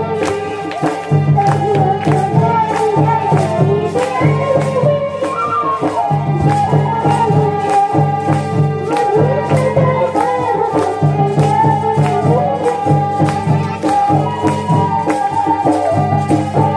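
Live Kudmali jhumar folk music: a barrel drum keeps a steady beat under jangling hand cymbals, with a wavering melody line over them.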